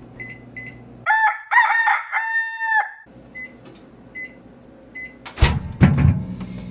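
Microwave oven keypad beeping: short high beeps, a few at the start and three more a second or so apart in the middle, broken about a second in by a loud pitched call of three or four held notes lasting about two seconds. A loud sudden knock comes near the end.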